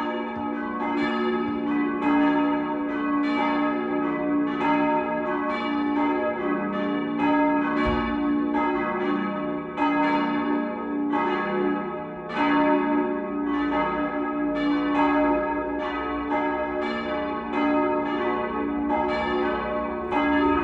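Several church bells of the Jakobuskirche ringing together in a full peal, their strokes falling irregularly over one another at about one to two a second over a steady hum of overlapping ringing tones.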